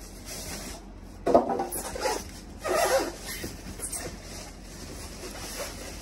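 Cardboard box and packing rubbing and scraping as a boxed speaker is pulled out, with two louder scrapes about one and a half and three seconds in.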